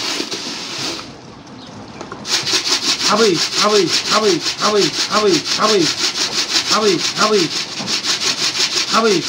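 Racing pigeons cooing, a run of short rising-and-falling coos about three a second that breaks off briefly about a second in. From about two seconds in, a fast, evenly pulsed scratchy rasping runs over the coos.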